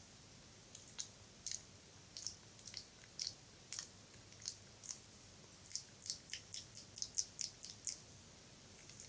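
Close-miked wet mouth sounds: soft, irregular tongue and lip clicks and pops, with a quicker run of them a little past the middle.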